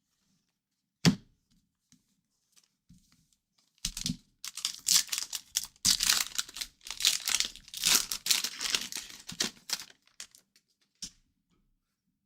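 Hockey card pack wrapper being torn open and crinkled in a run of crackly bursts lasting several seconds. A single sharp knock comes about a second in, and a smaller click near the end.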